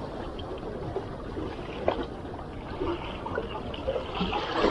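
Small sea waves lapping and trickling among shoreline rocks.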